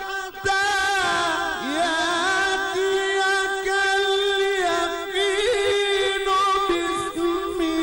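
A male Quran reciter's voice in melodic mujawwad-style recitation, drawn out into one long, ornamented, wavering phrase after a brief breath at the start.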